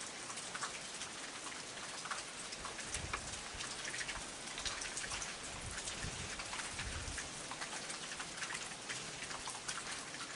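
Steady rain falling, heard as an even hiss dotted with many small drop ticks, with a faint low rumble about three to seven seconds in.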